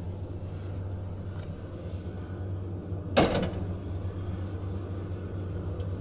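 Old elevator car travelling up its shaft, a steady low hum, with one sharp clack about three seconds in.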